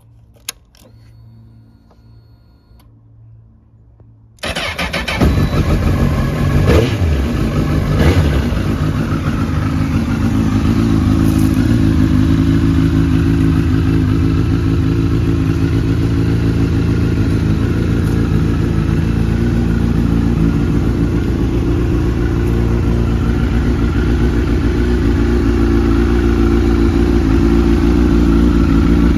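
Honda CBR1000RR Fireblade inline-four engine starting. After a quiet spell with a single click, the engine catches about four seconds in and is blipped twice briefly, then settles into a steady idle.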